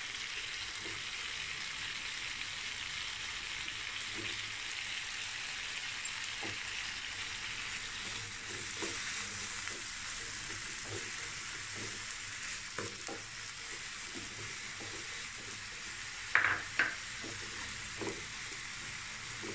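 Diced chicken and prawns sizzling steadily in oil in a flat pan as shredded cabbage is stirred in. A wooden spatula taps and scrapes against the pan, with two louder knocks about three-quarters of the way through.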